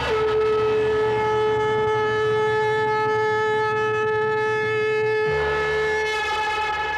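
A conch shell (shankh) blown in one long, steady, unwavering note over a low musical drone, fading about six seconds in.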